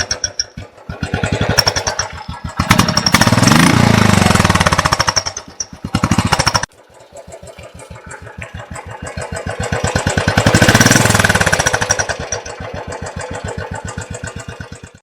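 Royal Enfield Classic 500 single-cylinder engine running with its even, rapid thumping beat, revved up and back down twice. There is an abrupt cut a little past the middle.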